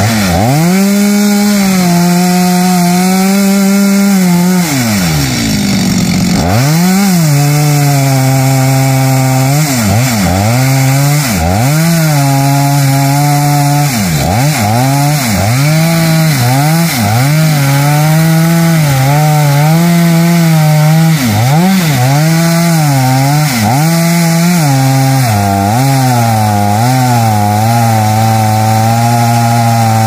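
Two-stroke chainsaw cutting xà cừ (African mahogany) wood under load. The engine note sags and recovers about once a second as the chain bites into the cut. About six seconds in it drops almost to idle, then revs back up.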